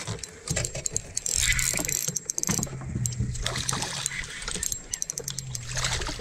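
Spinning reel being cranked as a hooked striped bass is reeled in on a bent rod, over a hiss of water and wind with scattered small clicks. A low steady hum comes in twice.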